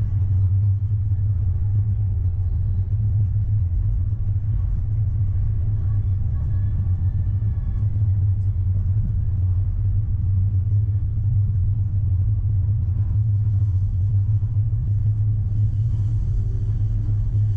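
Electric tram running along its line, heard from the driver's cab: a steady low rumble, with a higher hiss joining near the end.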